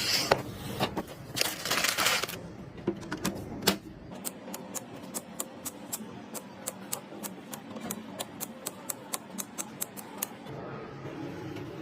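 Sharp mechanical clicks and rustling handling noise, then a steady run of evenly spaced clicks, about four a second, that stops about ten seconds in.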